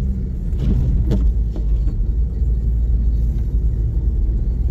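Steady low rumble of a car driving slowly on a snow-covered road, heard from inside the cabin.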